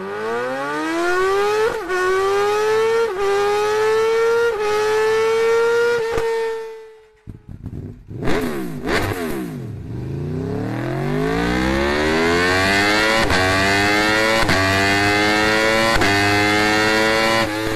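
Superbike with an Akrapovič exhaust accelerating hard through the gears. The engine note climbs and dips briefly at each quick upshift, about four times, then fades out. After a short break come a couple of quick revs, then another hard run up through about four more upshifts.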